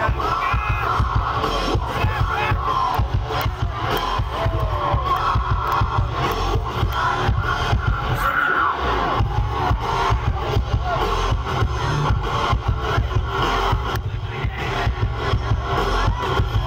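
Live band playing loudly through a PA: a drum kit and electric guitars with a heavy bass, with crowd noise mixed in.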